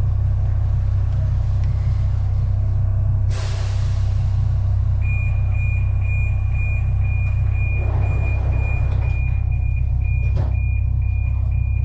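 Budapest M4 metro train with a steady low hum, a short hiss of air about three seconds in, then a rapid, steady high beeping from about five seconds on.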